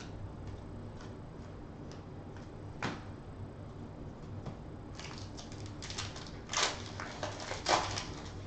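Trading cards being shuffled through in the hands with soft clicks. From about five seconds in, a foil card-pack wrapper crinkles and tears as it is opened, loudest near the end.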